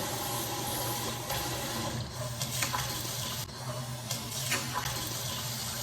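Kitchen tap running steadily into the sink while dishes are washed, with a few light knocks of dishware about halfway through and again near the end.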